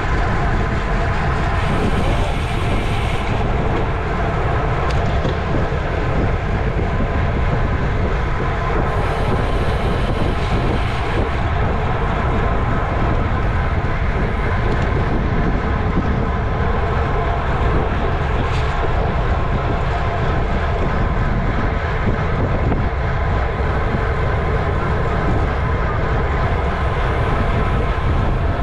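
Wind rushing over the microphone of a camera on a road bike racing at speed. Under it runs a constant hum with several steady tones.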